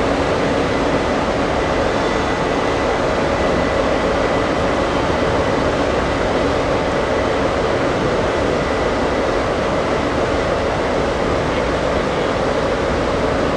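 Steady running noise of a train, even throughout, with a faint constant whine above it.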